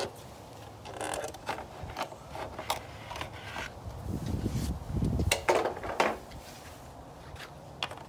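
Plastic engine cover of a BMW M54 inline-six being pried up and lifted off its mounts: a series of scattered plastic clicks and knocks, with a heavier patch of handling noise about four to five seconds in.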